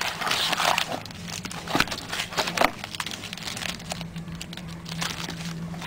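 Trading-card pack wrappers crinkling and being torn open, with dense sharp crackles in the first few seconds that thin out after that. A steady low hum runs underneath.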